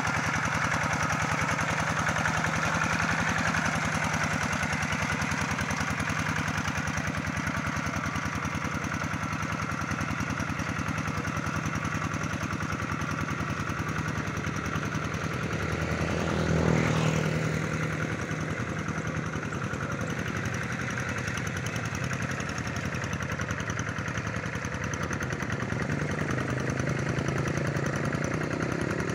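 Single-cylinder diesel engine of a two-wheel hand tractor running steadily under load as it plows a flooded rice paddy, with a fast, even engine beat. It swells louder for a moment about halfway through.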